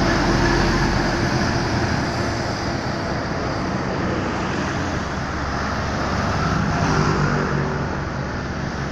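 Roadside traffic: the steady road and engine noise of passing vehicles, swelling a little about seven seconds in.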